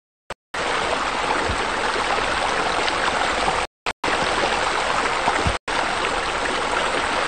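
Steady rushing of running water, like a small waterfall, starting about half a second in and cut twice by sudden brief dropouts to silence.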